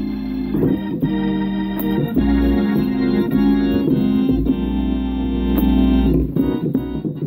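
Gospel organ playing full, held chords over a deep sustained bass, with the chords changing every second or two.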